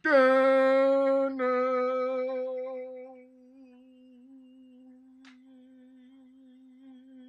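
A man humming one long held note at a steady pitch with a slight wobble. It is loud at first and drops much quieter about three seconds in, while the note carries on unbroken.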